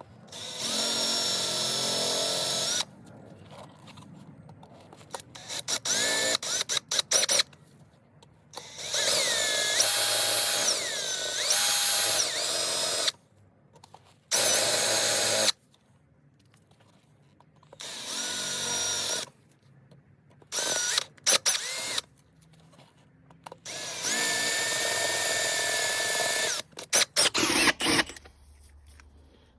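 Electric drill with a 6 mm bit drilling the heads off aluminium-sleeve rivets on a motorcycle exhaust silencer. It runs in about eight short bursts with pauses between them, and its whine sags and recovers at times.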